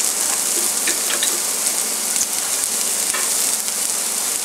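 Chopped onions, garlic, ginger and green chillies sizzling steadily in hot oil in a non-stick pan, with a few light clicks now and then.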